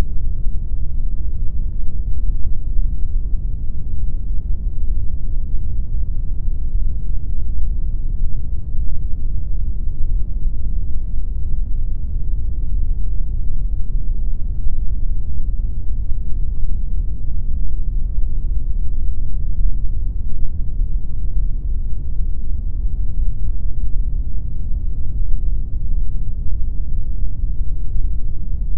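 Synthetic pink noise playing steadily and unchanging: an even rush of noise weighted heavily toward the low end, with little above the upper midrange.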